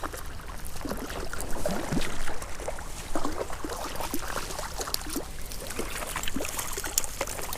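Irregular small splashes and drips of creek water as a small brown trout is brought in and handled in the shallows.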